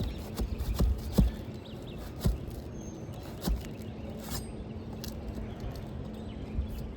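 A handful of short, dull knocks and light scrapes from handling asphalt shingles on a roof, over a low steady background hum.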